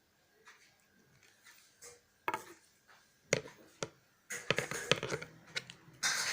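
Mechanical bird wing mechanism clicking and clacking: a few separate sharp knocks, then a quick rattling run of clicks and a short rasp near the end.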